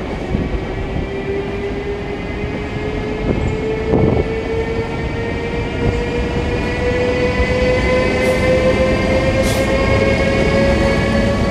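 SNCB Class 18 electric locomotive hauling M6 double-deck coaches past at close range: a several-toned electric whine from its traction drive rises steadily in pitch as the train gathers speed, over the rumble of wheels on rail, with a few knocks from the track.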